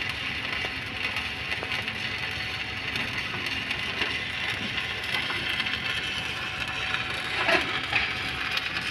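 Stick (SMAW) welding arc burning steadily: a continuous frying crackle from the electrode as it lays the last capping pass on a horizontal (2G) pipe joint, with a couple of brief louder spurts near the end.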